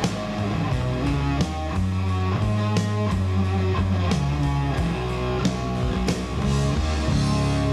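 Rock band playing a slow, heavy riff: electric guitar holding long low notes over bass, with a drum hit about every second and a half.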